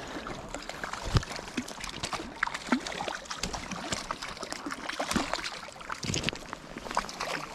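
A hooked trout splashing and thrashing at the surface of shallow water as it is played in to the bank. Quick irregular splashes, with one sharper knock about a second in.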